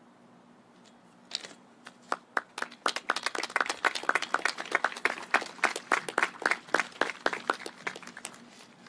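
A small group clapping by hand. A few scattered claps about a second in, then steady clapping with each clap distinct, thinning out near the end.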